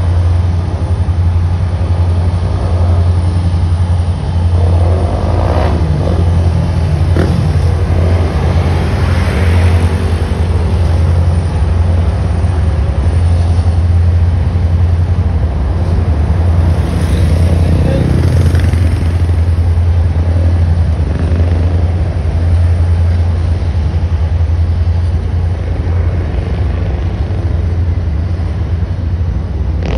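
Terminal Railroad Association diesel locomotives and their freight cars rolling over an elevated viaduct, a steady low drone throughout. Road traffic passes twice, rising and falling in pitch.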